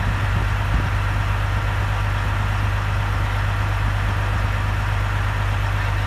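Diesel engine of a semi-truck idling with a steady low rumble.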